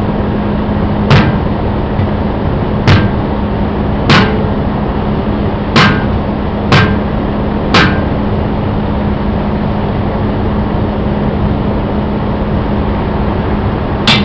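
Sledgehammer blows on a long steel bar driven between a truck tire's bead and its rim, breaking the bead by hand. Six sharp metal strikes come at uneven intervals over the first eight seconds, then a pause, and one more comes at the very end. A steady low hum runs underneath.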